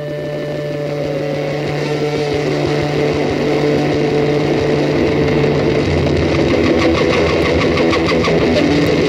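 An engine running steadily and growing gradually louder, with a run of regular ticks in the last few seconds.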